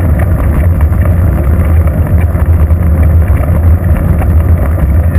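Wind buffeting and road rumble picked up by a bicycle-mounted GoPro camera's microphone as the bike rolls along a paved road: a loud, steady low rumble.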